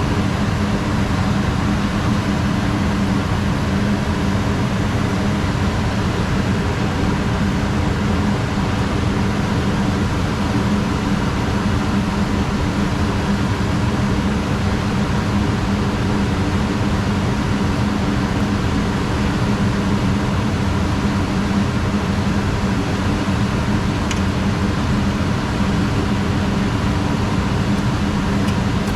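Gas furnace running with its blower going: a loud, steady hum with a low tone and even airflow noise that does not change.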